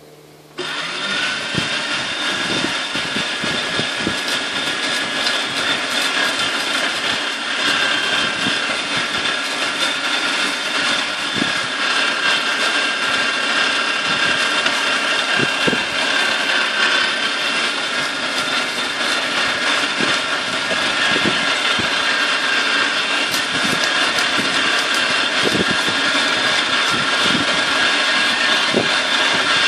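Luvelo electric meat grinder switching on about half a second in and running steadily with a whining motor, its auger crunching Paulownia charcoal with frequent clicks and cracks.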